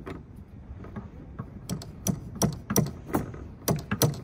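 Hammer tapping on a metal pin in a sailboat's mainsheet traveller car to drive it out: sharp metallic knocks about three a second, starting a little before halfway.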